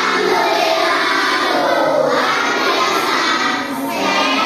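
A class of children chanting a response together, many young voices at once, loud and steady.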